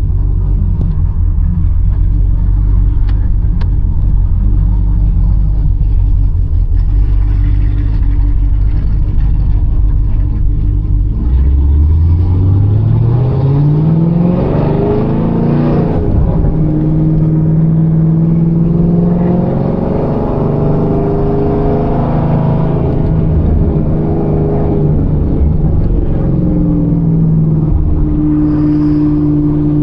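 Chevrolet Camaro ZL1's supercharged V8 running at a low steady rumble, then accelerating about eleven seconds in, its pitch rising for a few seconds before it settles into a steady higher drone that shifts slightly up and down.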